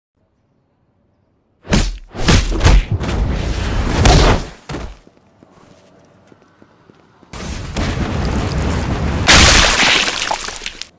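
A person sneezing very loudly and close enough to overload the microphone, in two loud bouts, the second one longer and louder.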